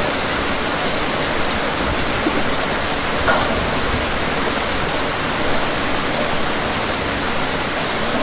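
Steady rain falling, an even hiss at a constant level with a few faint individual drops.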